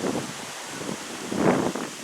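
Mountain wind blowing through birch trees, leaves rustling, with gusts buffeting the microphone; a short surge at the start and a stronger gust about a second and a half in.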